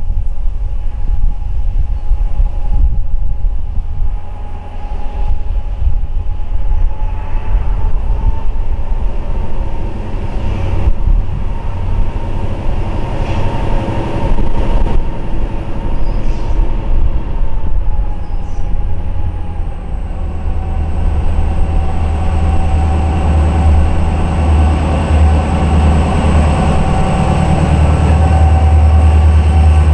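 Diesel-led passenger train approaching and running past close by, a heavy low rumble that grows strongest near the end as the cars pass beneath. A steady high-pitched tone runs over it.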